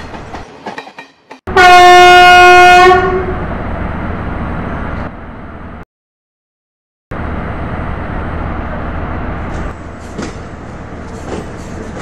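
A train horn gives one loud blast lasting about a second and a half, starting about a second and a half in, over the steady running noise of a passing train. The train noise cuts out abruptly for about a second midway, then resumes steadily with a few faint clicks near the end.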